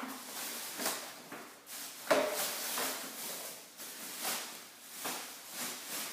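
Plastic garbage bag rustling and crinkling in irregular bursts as an espresso machine is worked into it, with one sharper knock about two seconds in.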